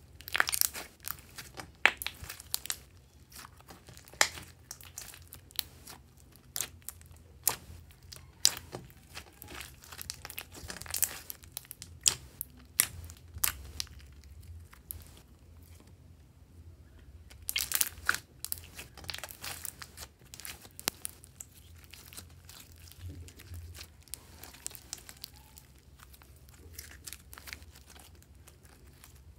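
Clear slime mixed with clay being kneaded, stretched and folded by hand, giving off irregular sticky crackles and pops. The crackles come in bursts, thickest just after the start and again a little past halfway.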